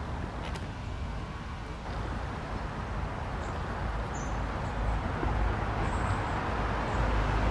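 Road traffic from a nearby city street, a steady rushing hum with a low rumble, growing louder toward the end. A few faint, short high bird chirps come through it.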